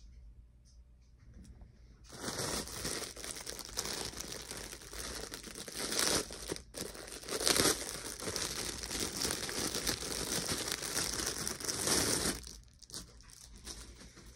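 Clear plastic wrapping crinkling and rustling as a doll is handled and unwrapped. It starts about two seconds in, breaks off for a moment midway, and stops a couple of seconds before the end.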